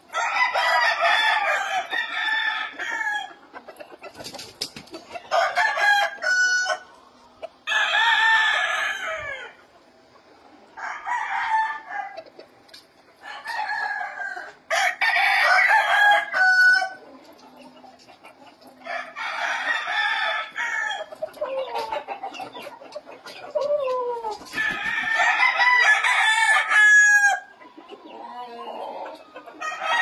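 Game roosters crowing one after another, a loud crow every two to three seconds, from several caged birds.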